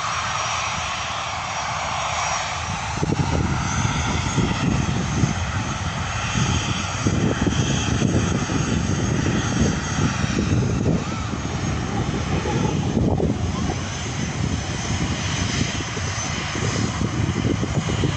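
Jet airliner engines running at takeoff power, heard across the airfield: a steady rushing noise, with a heavy, crackling low rumble that comes in about three seconds in and stays.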